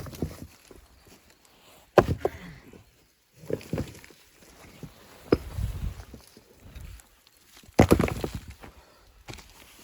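Irregular knocks and thumps, a few seconds apart, with the loudest cluster near the end and quieter rustling and shuffling between them.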